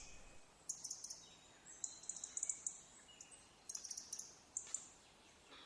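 Faint, very high-pitched bird chirps in quick little clusters, repeated several times over a quiet natural background.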